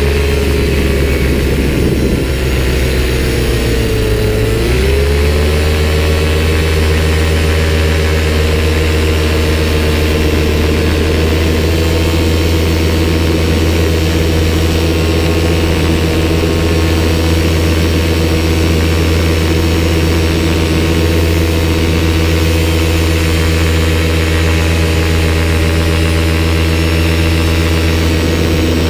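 Paramotor engine and propeller running loud and steady in flight. Its pitch sags for a couple of seconds early on as the throttle eases, then comes back up about five seconds in and holds.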